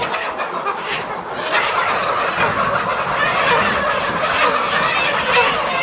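A flock of chickens squawking and clucking together, growing louder about a second and a half in: the birds are distressed as they are chased and caught by hand.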